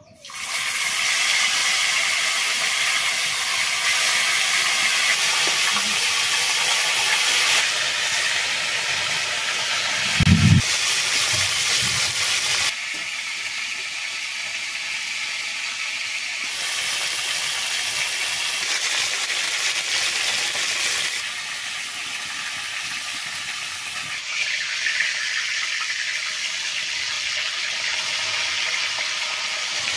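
Pieces of mrigal fish sizzling in hot oil in a large aluminium wok, a loud steady hiss that starts abruptly as the fish goes in. A brief low thump comes about ten seconds in.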